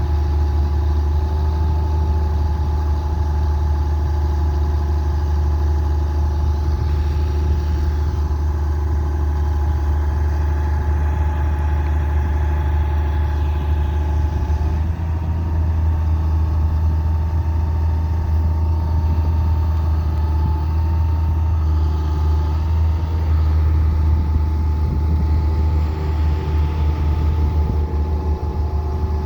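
Hitachi Zaxis 200LC excavator's diesel engine running steadily with a deep rumble and a steady higher whine, the pitch shifting slightly about halfway through.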